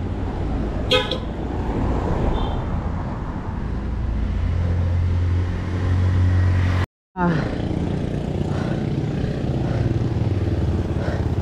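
Wind buffeting the microphone and tyre rumble from a mountain bike rolling along a paved street, with a short pitched beep about a second in. The sound cuts out completely for a moment just past the middle, then the same rumble resumes.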